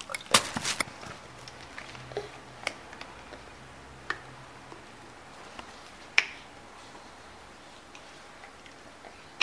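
A brief rustle and clatter of handled plastic near the start, then a few isolated sharp clicks and taps from a plastic toiletry bottle being handled by a toddler, the loudest about six seconds in.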